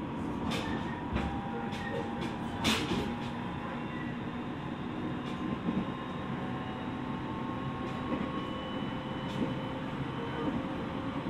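Running sound of a JR East 701 series electric train heard inside its front car: a steady rumble with thin whining tones from the traction equipment, and sharp clicks and knocks scattered through it, one louder knock about three seconds in.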